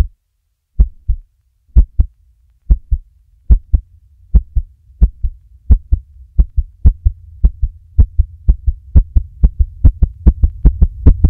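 Heartbeat-like double thumps, about one pair a second at first and quickening to about two pairs a second near the end, over a low hum that grows steadily louder.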